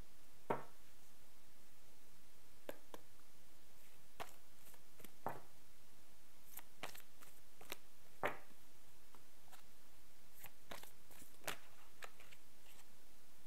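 Tarot cards being handled: a dozen or so soft, separate clicks and taps spread over several seconds, over a steady low hiss.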